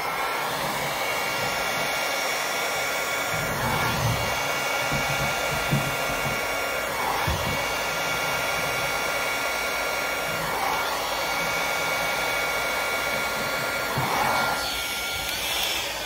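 Hairdryer with a nozzle attachment running on its low setting: a steady rush of air with a constant whine, swelling slightly every few seconds.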